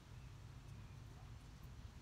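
Near silence: faint outdoor background with a low steady hum.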